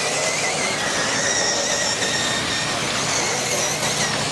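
Electric off-road RC buggies racing round the track: a steady, high-pitched whine of their motors and drivetrains, wavering slightly in pitch, over a constant haze of noise.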